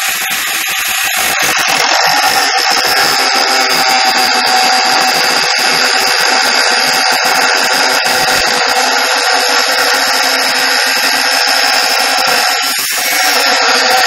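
Angle grinder with a cutoff wheel cutting through a flat metal bar, a steady high whine over a harsh grinding hiss. The load dips briefly near the end, then the wheel bites again.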